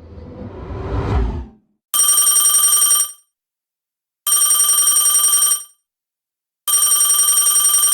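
A rising whoosh-like swell, then a telephone bell ringing three times, each ring about a second long with a rapid fluttering trill.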